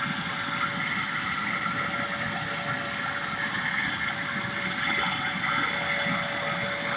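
Bissell Lift-Off upright vacuum cleaner's 12-amp motor running steadily on carpet: a constant whir with one steady tone held through it.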